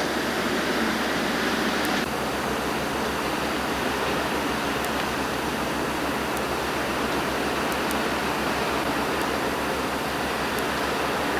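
Steady rushing hiss with no distinct events; its tone shifts abruptly about two seconds in.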